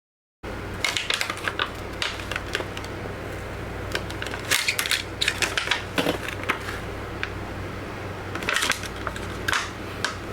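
Plastic screen-protector film being peeled off a tablet's glass screen, giving irregular crackles and clicks as the adhesive lets go, over a steady low hum.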